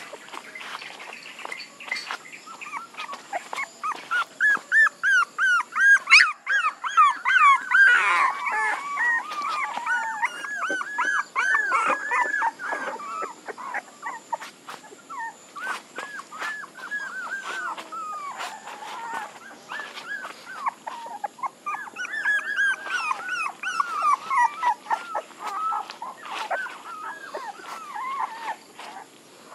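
Puppies whimpering: a rapid string of short, high whines that rise and fall in pitch. They come thickest through the first half, ease off in the middle and pick up again near the end.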